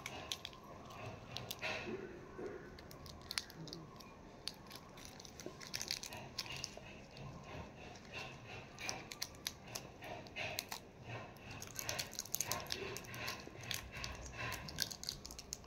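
Faint, scattered crinkling and clicking of a candy wrapper being handled and unwrapped in the fingers.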